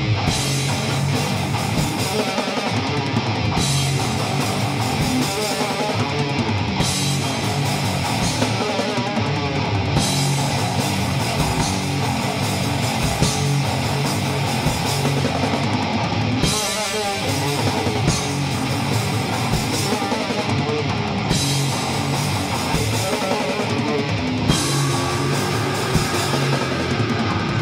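Powerviolence band playing live: electric guitar, bass guitar and drum kit together, with a short break a little past halfway before the band comes back in.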